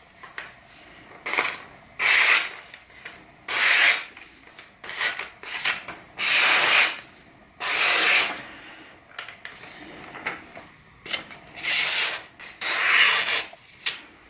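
Folding knife blade slicing through a magazine page, about ten separate strokes, each a short papery hiss. The cuts go through cleanly, a sign of a sharp edge.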